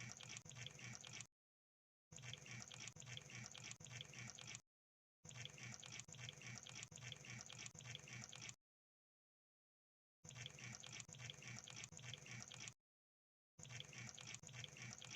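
Crab sound effect: a faint, wet clicking and crackling that comes in stretches of one to three seconds, broken four times by short gaps of dead silence.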